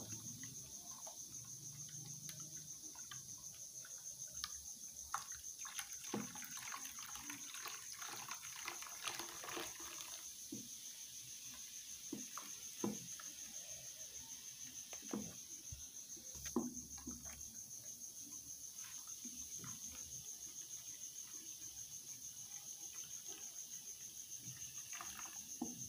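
Wooden spoon slowly stirring a foamy liquid in a plastic bowl: faint swishing with scattered light knocks of the spoon against the bowl. A steady high-pitched trill runs underneath.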